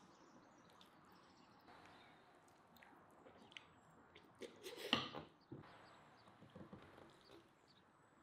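A sauce-glazed chicken drumstick being torn into, with faint sticky clicks of meat and sauce and one louder tearing, biting sound about five seconds in, over a quiet room.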